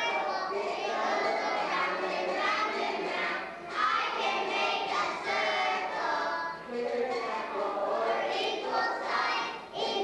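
A group of preschool children singing a song together, with brief pauses between phrases.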